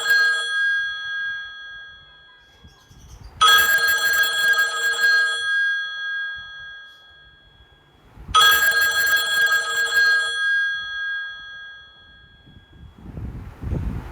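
Phone ringtone in the style of a telephone bell: a trilling ring about two seconds long that fades out, sounding twice about five seconds apart, after the fading tail of the ring before.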